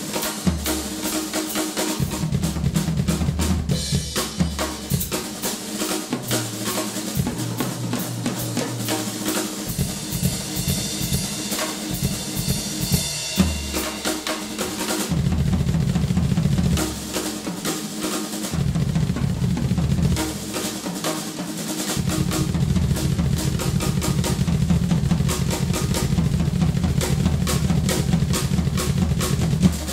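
Rock drum kit played fast and hard, with dense strokes on snare and toms mixed with bass drum and cymbals.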